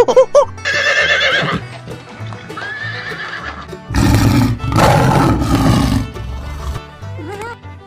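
A horse neighing: a quavering whinny about a second in and a second call a little later, then two loud, noisy bursts between about four and six seconds. Background music with a steady bass line plays underneath.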